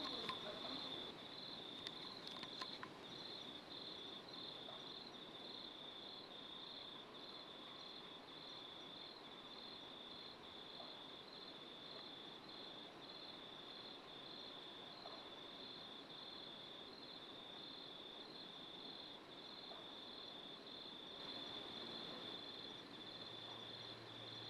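Night-time field ambience of a cricket chirping: a faint, high-pitched chirp repeating at an even rhythm throughout.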